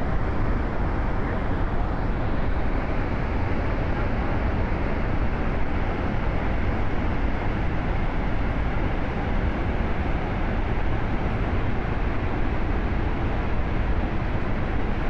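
Steady roar of a large waterfall: a dense, even rush with a heavy low rumble.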